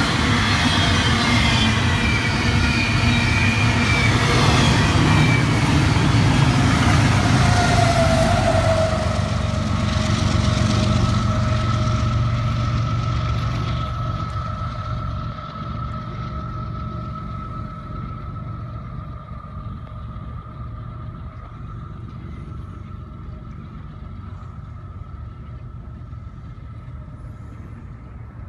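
Double-stack intermodal freight train passing close by: steel wheels rolling over the rail joints with a high metallic squeal that slides down in pitch. About fourteen seconds in it drops to a quieter, more distant train rumble with a faint steady whine.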